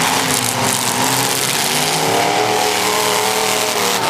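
Demolition derby car engines running loud, one revving up with its pitch climbing from about two seconds in, over a dense wash of engine and arena noise.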